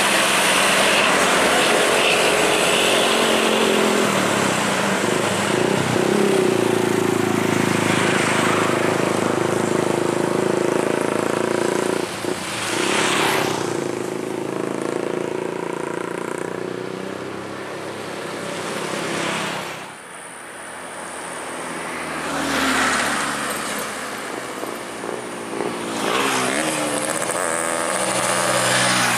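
Diesel trucks labouring up a hill as they pass, with motorcycles among them. The engine sound swells and fades with each pass and dips briefly about two-thirds of the way through.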